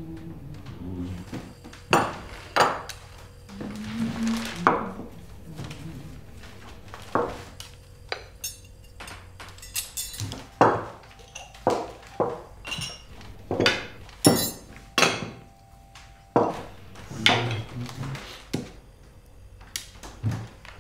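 Cups, plates and wooden salt and pepper mills set down one after another on a wooden breakfast table: a long series of sharp clinks and knocks, coming about twice a second in the second half.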